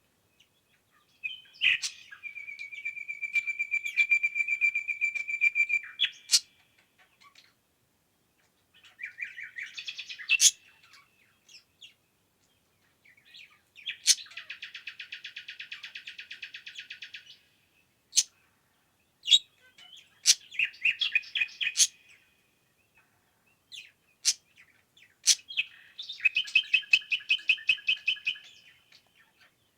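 Songbirds singing in repeated trilled phrases, each a few seconds long with short pauses between, one a long, even trill. Sharp, loud clicks come every few seconds between and over the song.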